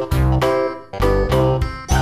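Instrumental background music: struck keyboard-like notes over a strong bass, with a new note or chord about every half second.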